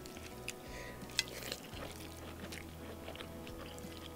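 Close-up chewing and wet, sticky sounds of bare fingers picking through a plate of saucy beef and rice, with small clicks throughout and one sharp click about a second in.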